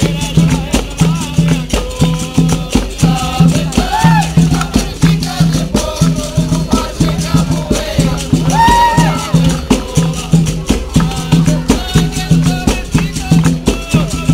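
Capoeira roda music: a quick, even beat on the atabaque hand drum with a shaker rattling along, and a voice singing short lines, once about four seconds in and again near nine seconds.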